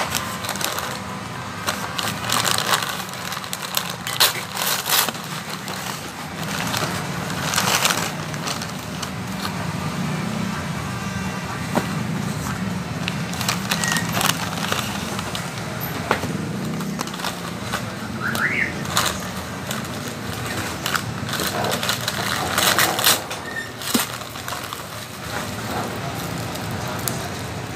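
Paper fast-food bags and packaging rustling and crinkling in irregular bursts as they are opened and handled, over a steady low background hum.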